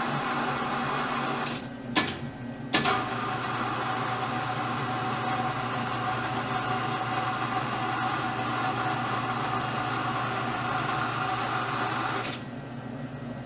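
Electric gear-motor drive of an Aronson 2,000 lb welding positioner tilting the table, a steady machine hum with several constant tones. About two seconds in it drops out briefly with two sharp clicks as it stops and restarts, and it cuts off near the end.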